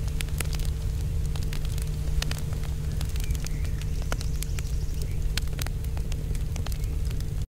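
Fire crackling steadily, with scattered sharp pops over a low rumble and a faint steady hum.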